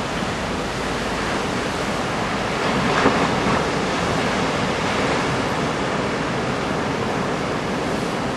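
Steady roar of heavy typhoon surf breaking, mixed with wind, swelling slightly about three seconds in.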